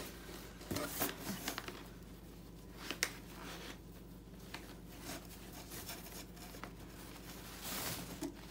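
Soft rustling of a fabric dust bag being handled while its drawstring cord is pulled and untied, with scattered light clicks and one sharper tick about three seconds in.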